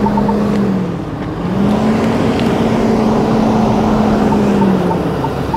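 Ford F-350 Super Duty's 6.7-litre Power Stroke turbodiesel V8 pulling under load as the truck crawls up a steep dirt hill in two-wheel drive. The revs sag about a second in, climb back and hold, then ease off near the end as the throttle is modulated. A faint repeated beep sounds about three times a second near the end.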